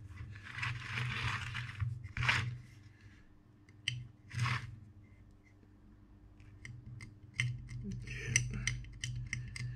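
A small tool's tip scraping and clicking on a circuit board, with a short hiss early, two sharper scrapes about two and four and a half seconds in, and a run of quick light ticks near the end. A steady low hum sits underneath.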